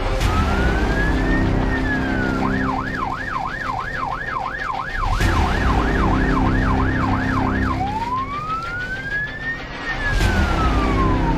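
Fire engine's electronic siren: a slow wail rising and falling, switching about two seconds in to a fast yelp of roughly two and a half sweeps a second, then back to a slow wail near the end, over a low rumble.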